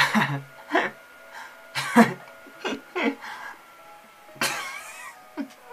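A man's short vocal bursts, chuckles and giggles, about half a dozen of them, with a longer one near the end. Faint music runs underneath.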